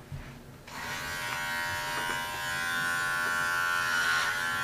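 Electric hair clippers switching on just under a second in, then buzzing steadily as they are run over a man's head.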